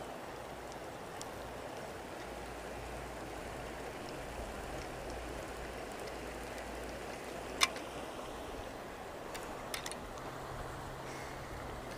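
River water rushing steadily. There is one sharp click about seven and a half seconds in and a couple of fainter clicks near ten seconds.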